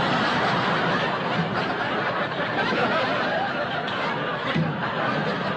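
Audience laughing: one sustained wave of crowd laughter that holds at a steady level for several seconds.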